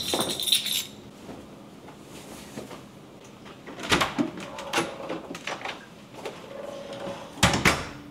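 Keys jingling as they are picked up, then the clicks of a door handle and latch, and a front door shutting with a solid knock near the end.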